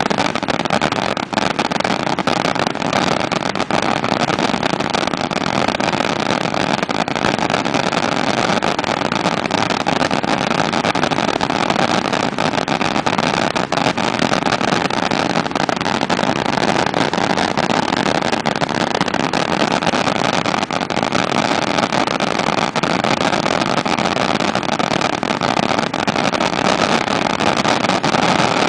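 Fireworks crackling in a dense, unbroken stream of fine pops and hiss, with no deep booms.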